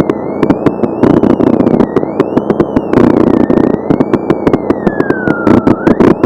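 Off-road race truck's engine running at the start line, with a dense crackle of sharp clicks over its steady rumble and a thin whine that rises and falls in pitch.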